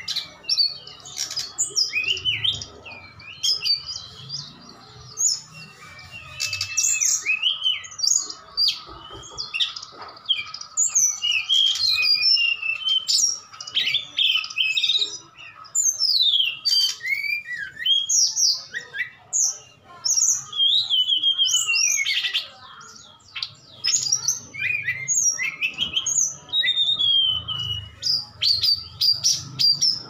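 Caged hill blue flycatcher and SRDC (sikatan rimba dada coklat, a jungle flycatcher) singing against each other in a duel: rapid, overlapping whistled and warbled phrases with almost no pause, over a faint steady hum.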